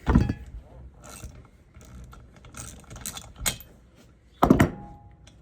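Ratchet socket wrench clicking, with knocks of metal tools, while the spark plug is worked loose from a Stihl MS 162 chainsaw. There is a sharp knock at the start and another loud one about four and a half seconds in.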